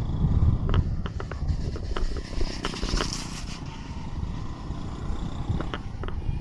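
Ride in a motor rickshaw: its small engine's steady low rumble with short rattles and clicks from the body. A hissing rush rises about two and a half seconds in and fades after about a second.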